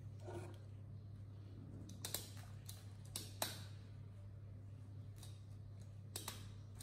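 Faint handling sounds of a baby monkey being dressed: a few short clicks and light rustles of cloth and fingers, spread over a few seconds, above a steady low hum.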